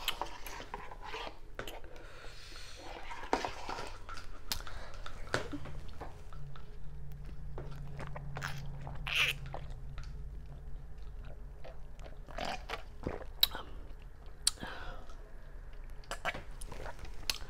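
Close-miked chewing and swallowing of instant ramen noodles, with scattered small clicks and knocks, and sips from a plastic cup.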